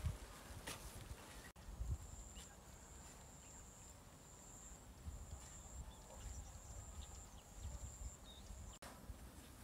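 A hoe blade striking soil with soft thuds in the first two seconds, then quiet open-field ambience with a faint low rumble and a thin, high steady whine that comes and goes in several stretches.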